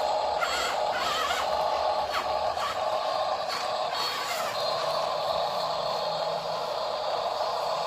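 Small electric gear motors of a Huina RC excavator running with a steady whine that wavers in pitch, with scattered clicks and rattles.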